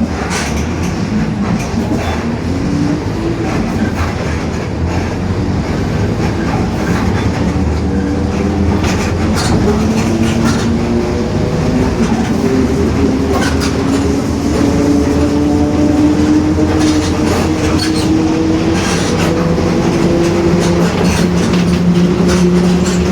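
Mercedes-Benz OF-1721 BlueTec 5 city bus under way: diesel engine and drivetrain running, with a whine that rises slowly in pitch as the bus gathers speed, over scattered clicks and rattles. The whine comes from a growling differential.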